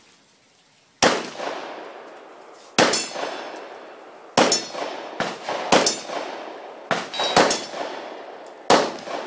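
A string of about eight pistol shots fired at steel targets, starting about a second in and spaced unevenly, each with a metallic clang of the steel plates ringing.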